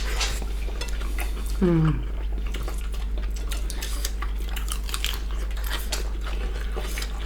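Eating sounds at a table: utensils clicking and clinking against bowls and plates in small scattered taps, over a steady low hum. A brief falling murmur of voice comes about a second and a half in.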